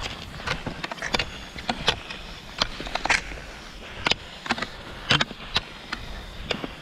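Fischer Twin Skin classic cross-country skis sliding over thin, crusty snow on a paved path with a steady scraping hiss, and the ski-pole tips striking and scraping the surface in sharp, uneven clicks, roughly two a second.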